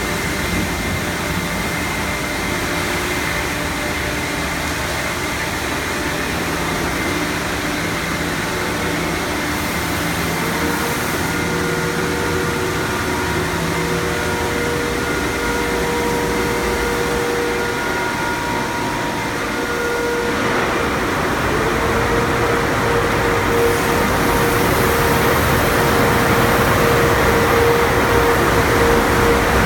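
Automatic car wash tunnel machinery running: a steady hum of motors and conveyor with a few held tones. About two-thirds of the way in, a louder rushing noise of water spray and spinning cloth washers against the car joins and keeps building.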